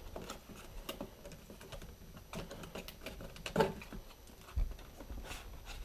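Light, irregular clicks and taps of a cardboard product box being handled and opened, with a louder tap about three and a half seconds in and a soft thud a second later.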